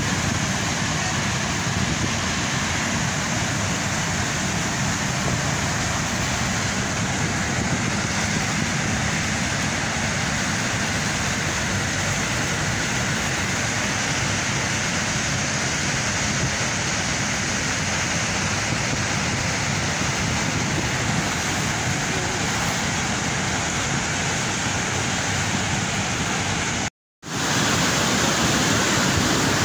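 Steady rush of floodwater churning through a river barrage's gates. Near the end it cuts out for a moment and returns a little louder.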